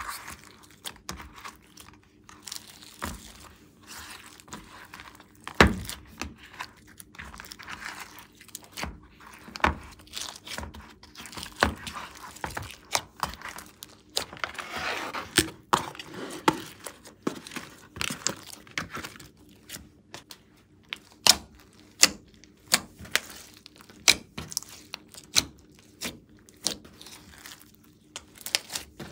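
Hands kneading, pressing and stretching glossy slime, making irregular sticky pops and crackles with a faint hum underneath.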